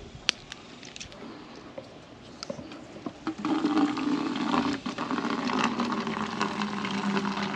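A few small clicks as the valve on a gravity water filter is opened. A little over three seconds in, filtered water starts to stream from the outlet into a plastic bottle, a steady pouring sound with a good flow.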